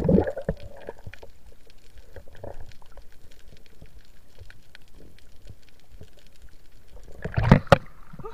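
Underwater ambience picked up by a submerged camera: a low, steady hiss with faint crackling ticks and muffled gurgling. About seven and a half seconds in, loud splashing as the camera breaks through the water surface.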